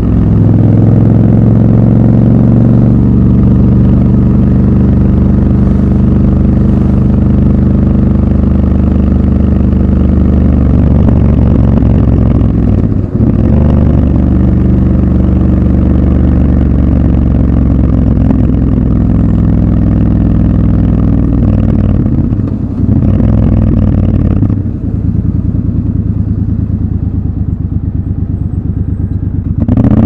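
Triumph Scrambler 1200 XC's parallel-twin engine running under way in city traffic. The note holds steady, dips briefly about halfway through and twice more a few seconds later, then runs softer for a few seconds before picking up again at the very end.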